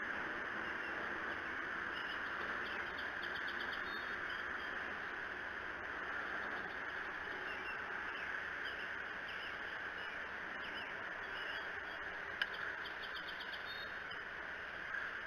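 Outdoor nest-cam ambience: a steady hiss with scattered short bird chirps and a couple of quick trills, and one sharp click about twelve seconds in.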